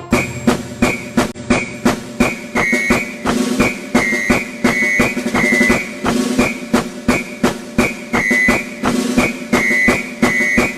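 Background music with a steady drum beat and a short repeating melody.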